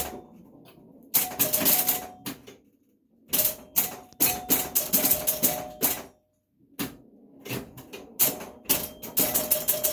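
Super Flite electromechanical pinball machine in play: rapid bursts of clicking and clacking from its score reels, relays and playfield, with brief ringing tones mixed in. The bursts stop twice for a moment.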